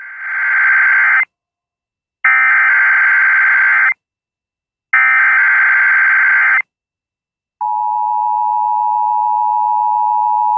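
Emergency Alert System SAME header: three data bursts of about a second and a half each, then a steady two-pitch attention tone starting about three quarters of the way in. The tones signal that a voiced weather alert message is about to follow.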